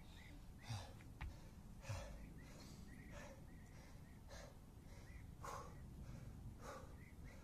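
A man breathing hard, with heavy breaths about once a second, as he recovers from intense kettlebell and burpee exertion. A single sharp click comes about a second in.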